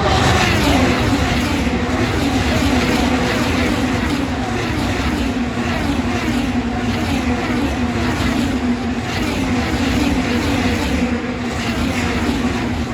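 IndyCar race cars' twin-turbo V6 engines passing one after another, each engine note dropping in pitch as it goes by, over a continuous wash of engine and tyre noise.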